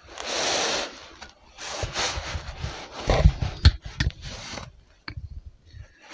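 Rubbing and scraping handling noise from a handheld camera being moved about, in three bursts of about a second each, with a few soft knocks in between.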